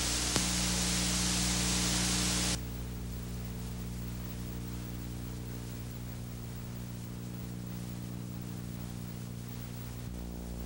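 Steady hiss and mains hum of an old 16mm film soundtrack, with a faint click near the start. The hiss drops suddenly to a quieter level about two and a half seconds in.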